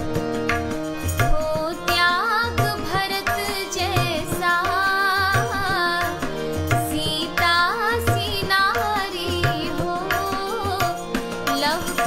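Woman singing a Hindi Krishna bhajan, her voice coming in about a second and a half in, with tabla strokes and steady held notes underneath.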